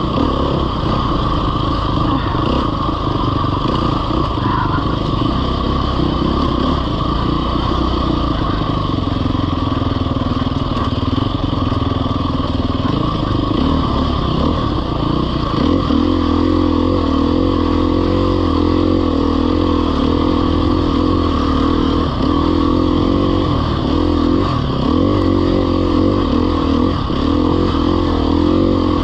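Off-road motorcycle engine running hard, its pitch rising and falling over and over as the throttle is worked, more so in the second half.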